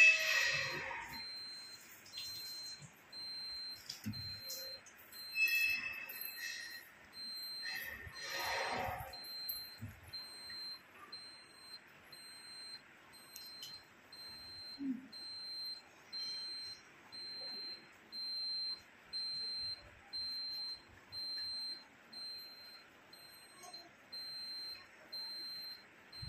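A high-pitched electronic beep repeating at an even pace, like an equipment alarm, with a louder, more varied sound right at the start.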